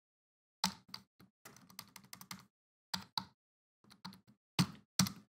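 Computer keyboard keys tapped in short, irregular runs of clicks with pauses between them, as a spreadsheet formula is typed in.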